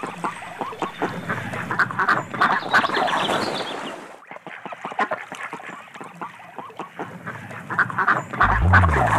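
Ducks quacking over and over, a busy stream of short calls that drops off briefly about four seconds in. A low pitched tone joins near the end.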